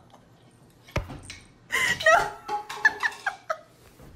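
A single sharp knock about a second in, then a person laughing.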